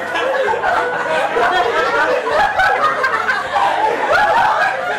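A crowd of teenagers talking over one another and laughing, with no single voice standing out.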